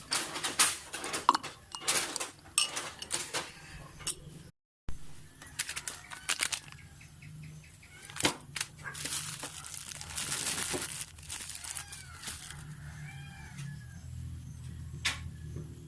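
Sharp clicks and knocks of objects being handled, then a cat meowing several times, short arched calls in the second half.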